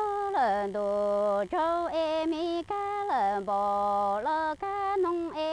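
A woman's unaccompanied voice singing Hmong lug txaj (kwv txhiaj) sung poetry: long held notes, with a swooping fall in pitch near the start and again about three seconds in, and short breaks between phrases.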